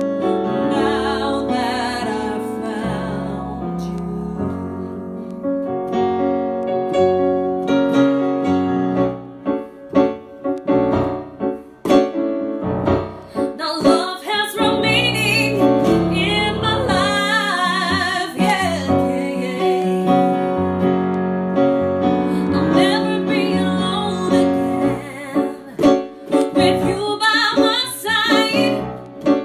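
A woman singing, accompanied by piano sounds played on a digital stage keyboard.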